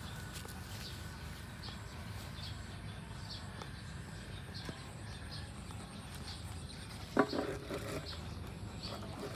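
Outdoor yard ambience: faint high chirps repeating throughout over a low steady background hum, with a short, louder pitched animal call about seven seconds in.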